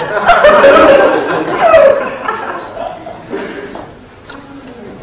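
Studio audience laughing, loudest in the first two seconds and dying away over the next two.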